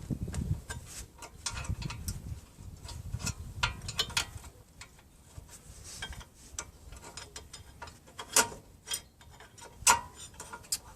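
Irregular metallic clicks and taps of brake pads and caliper hardware being handled, with two sharper clinks near the end.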